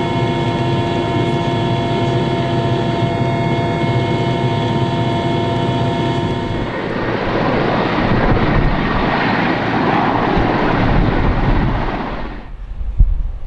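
Helicopter cabin noise: a steady engine and gearbox whine with several high tones over a low rumble. About seven seconds in it gives way to a louder, even rushing noise, which stops shortly before the end, leaving a low uneven rumble.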